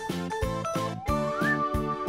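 Upbeat children's background music with a steady bouncing beat. Over it, a whistle-like sound effect glides upward in pitch over the second half.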